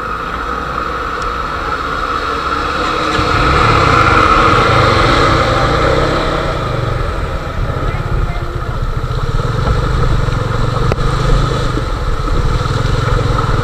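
Motorcycle engine running, growing louder about three seconds in and staying loud.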